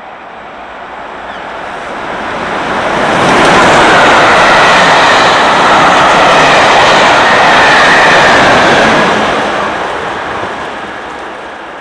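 Steam-hauled passenger train passing at speed behind rebuilt Bulleid West Country class locomotive 34046 Braunton. The noise builds as the engine approaches, then the coaches rush past with a loud rumble of wheels on rail, dying away as the Class 37 diesel on the rear goes by near the end.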